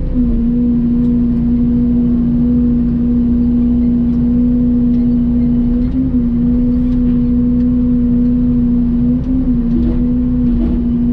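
Mini excavator's diesel engine running steadily, a constant drone with brief slight shifts in pitch about six and nine seconds in.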